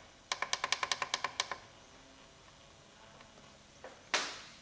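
Rapid run of about ten sharp clicks in just over a second as the menu buttons of a Taranis X9D Plus radio transmitter are pressed, then a single louder knock near the end.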